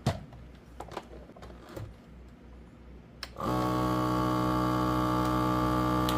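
A few handling clicks on a FoodSaver vacuum sealer, then about three and a half seconds in its vacuum pump starts and runs with a steady hum, drawing the air out of the bag before it seals.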